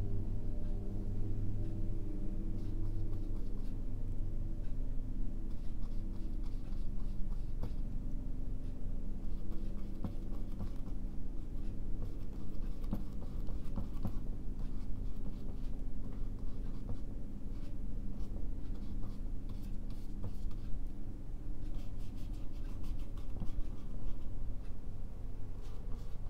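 Paintbrush strokes on a stretched canvas: spells of short, scratchy strokes as oil paint is worked in, over a steady low hum.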